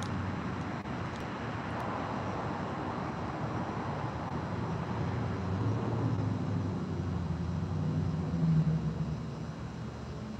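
A motor vehicle's low engine rumble, growing louder to a peak about eight and a half seconds in and then fading.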